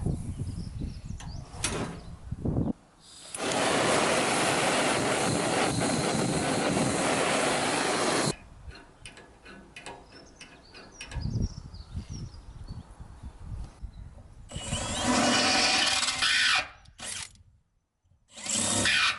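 Power tool running in bursts: one steady run of about five seconds, scattered knocks and clicks, then two shorter runs near the end.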